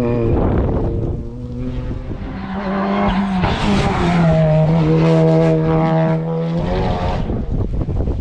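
Hillclimb race car engine under hard acceleration. The revs climb, hold at a high steady pitch for a couple of seconds, then drop off suddenly near the end.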